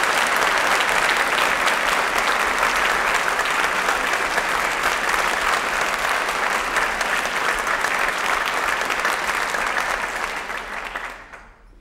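Audience applauding steadily in a theatre, the clapping dying away near the end.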